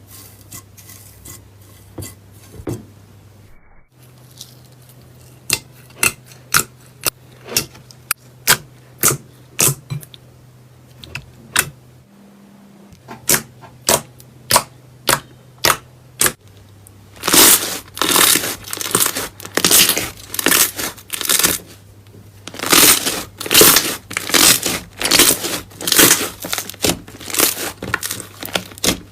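Slime being pressed and squeezed by hand, giving a run of sharp pops and clicks about two a second. Roughly halfway through it turns into louder, longer crackling, crunchy bursts.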